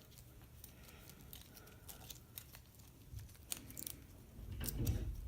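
Small plastic parts of a disassembled calculator being handled and set back in place: scattered light clicks and ticks, with a louder bump and a cluster of clicks near the end.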